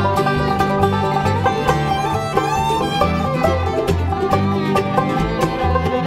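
Bluegrass band playing an instrumental passage: picked banjo to the fore over a walking upright bass, strummed acoustic guitar, mandolin and fiddle.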